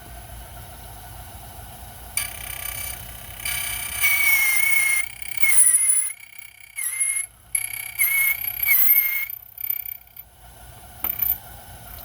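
Silca Mobile 008 key cutting machine running, its cutter wheel cutting a copy of a house key. A steady motor hum is broken, from about two seconds in until about nine seconds, by several loud, high-pitched screeching bursts as the cutter bites into the blank. After that the motor runs on alone.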